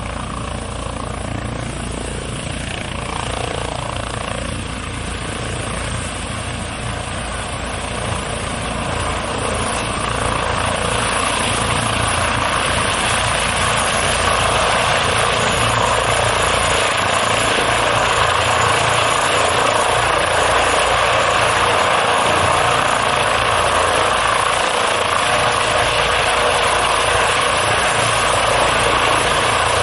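Eurocopter EC155 (Airbus H155) helicopter with its twin turboshaft engines, main rotor and Fenestron tail rotor running on the ground. The sound grows louder about ten seconds in as power comes up for take-off, then holds steady as the helicopter lifts into a low hover.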